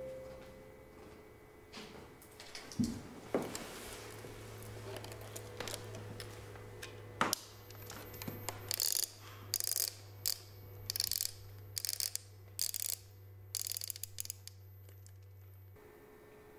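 Film camera's winding knob being turned: a sharp click, then about eight short ratcheting bursts in a row. A low steady hum runs underneath and cuts off suddenly near the end.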